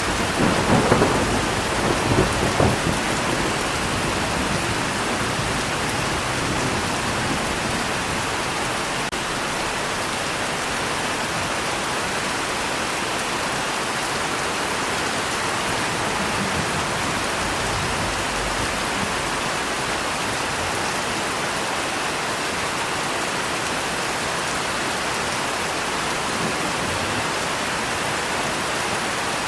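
Steady rain falling, with a peal of thunder rumbling in the first few seconds and fainter low rumbles of thunder about halfway through.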